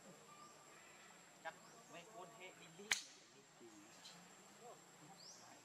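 Quiet background with a few faint clicks and one sharp click about three seconds in, and faint high rising chirps now and then.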